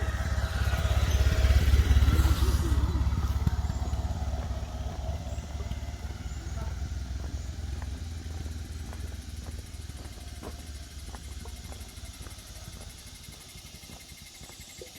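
A motor vehicle's engine passing on the road, loudest about two seconds in and then fading away steadily.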